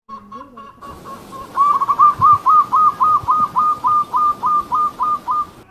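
Zebra dove (perkutut) cooing: a fast, even run of about fourteen short, clipped notes, some three to four a second, starting about a second and a half in after a fainter opening.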